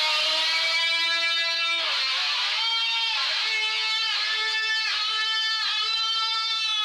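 Music: an electric guitar plays a slow melody of held notes, about a second each, several bending in pitch as they end.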